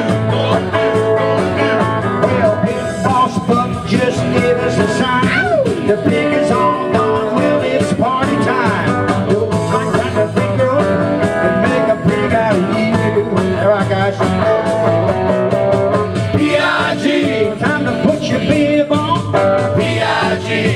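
Live band playing an upbeat rock-and-roll-style song: electric guitar with several people singing into microphones.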